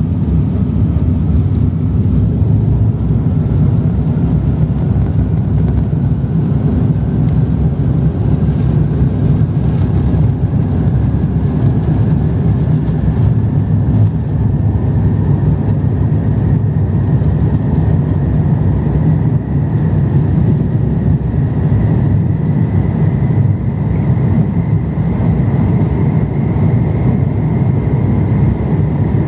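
Airbus A350-1000's Rolls-Royce Trent XWB-97 engines at takeoff thrust, heard inside the cabin: a loud, steady rumble with a high engine whine that rises slowly in pitch as the jet rolls down the runway and climbs away.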